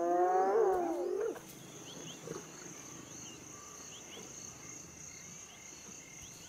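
A spotted hyena's cry, a pitched call sliding up and then down for about a second and a half. After it, a faint steady high insect drone with short repeated chirps.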